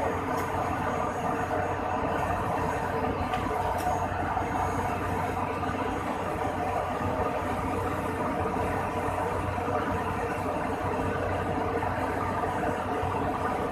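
Steady, unchanging machinery running noise from an Airbus A300-600, with a low hum under it and a couple of faint clicks in the first few seconds.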